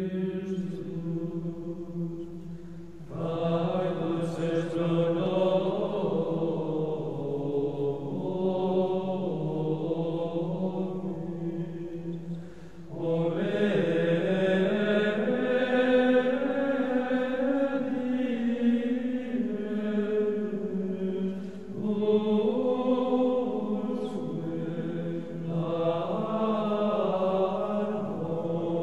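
Background music of slow vocal chanting: voices hold long notes in phrases that break off and start afresh about four times.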